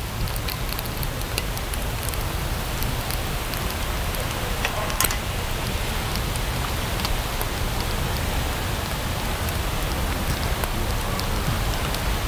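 Campfire burning in a metal fire ring: a steady hiss with scattered small crackles, and one sharper click about five seconds in.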